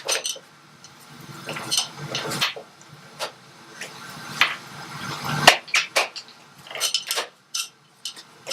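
Irregular metallic clinks and knocks of tools and motorcycle parts being handled while fitting a rear wheel, with the loudest knock about halfway through.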